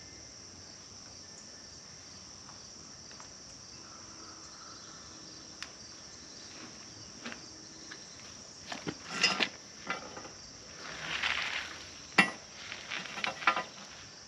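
Steady high-pitched insect chirring throughout. From about the middle on, scattered rattles, rustles and sharp knocks of equipment being handled, the loudest a single sharp knock near the end.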